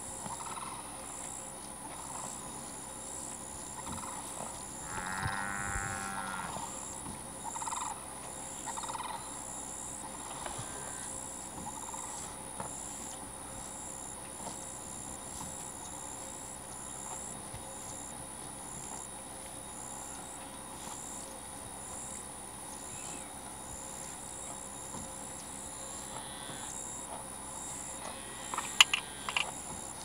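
Pasture ambience: insects chirping in a steady high-pitched repeating pattern over a constant high hum. A short low animal call comes about five seconds in, and a few sharp clicks sound near the end.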